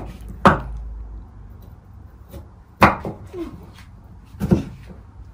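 Three sharp knocks from kitchen work, about two seconds apart, the first the loudest.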